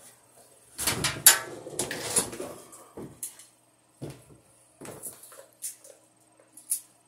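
Aluminum stepladder clattering and knocking as a person climbs down it: a dense run of metallic knocks about a second in, then scattered single knocks and clicks.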